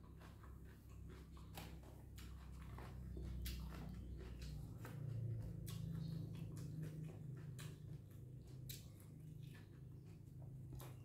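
Close-miked chewing and mouth sounds of someone eating noodle soup, with scattered light clicks.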